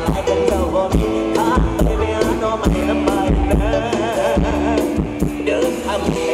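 Live Isan band music at concert volume: a drum kit keeps a steady beat under long held notes, with a singer's wavering voice over the top.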